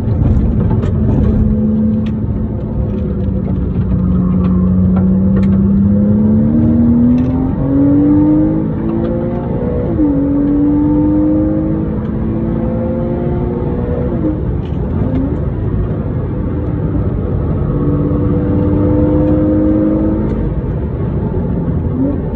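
Porsche Cayman S (987) 3.4-litre flat-six engine heard from inside the cabin at track pace: its pitch sags through a corner, then climbs under acceleration, drops suddenly about ten seconds in, and rises and dips again through the rest of the lap, over steady tyre and road noise.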